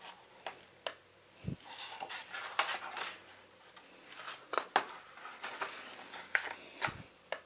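Paper pages of a hardcover picture book being turned and smoothed flat by hand: a series of short rustles and clicks, with two soft thumps as the book is handled, about a second and a half in and near the end.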